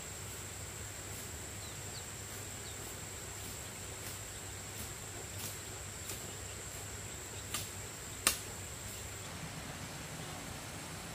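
Steady high-pitched insect drone over outdoor ambience, with faint ticks at a regular spacing and two sharper clicks about three-quarters of the way through.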